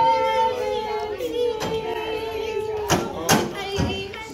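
A young female voice singing long held notes, one after another, with a few sharp thumps about three seconds in.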